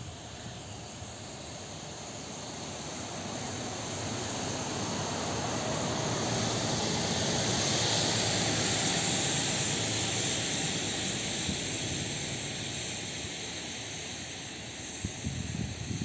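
Jet aircraft passing over, an even rushing roar that swells to a peak about halfway through and then fades away.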